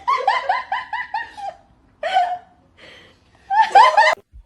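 High-pitched human laughter in three bursts: a quick run of about eight 'ha' syllables, a single short one, then another quick run near the end.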